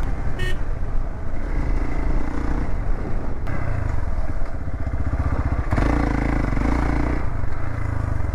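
Single-cylinder off-road motorcycle engine running as the bike rides along a dirt trail, held in second gear because its gear lever has fallen off. The engine note shifts about three and a half seconds in and grows louder near six seconds.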